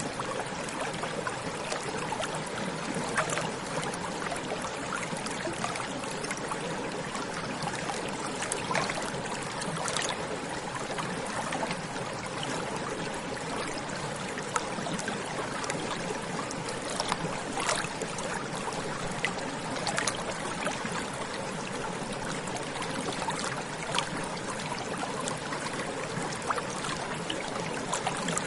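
A small stream running over rocks: steady babbling and trickling water, with frequent small splashes.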